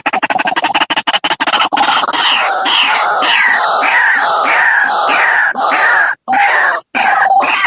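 White-breasted waterhen calling: a rapid train of clicks gives way to repeated calls that fall in pitch, about two a second, broken by short pauses near the end.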